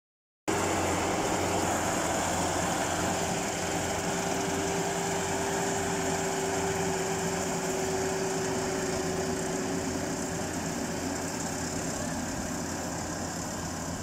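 FMWorld tracked rice combine harvester running as it cuts rice: a steady drone of engine and threshing machinery with a constant humming note, getting slightly fainter as the machine moves away.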